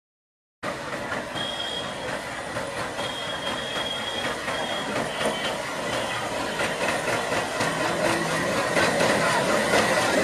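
Diesel locomotive hauling a passenger train as it rolls slowly past, after a short silent break at the very start. The engine runs under a steady rumble, and a thin high wheel squeal comes and goes for a few seconds. The sound grows louder as the locomotive draws alongside, with wheels clicking over the rail joints near the end.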